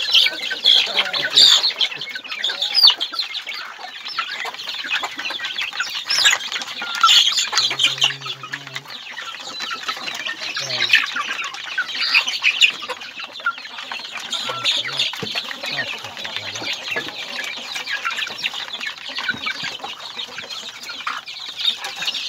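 Flock of native chickens clucking at a feeding trough, many short, high calls overlapping one another.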